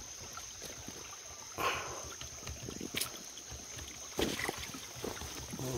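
Stream water splashing and sloshing as someone scoops after shrimp in the shallows, with louder splashes about one and a half and four seconds in.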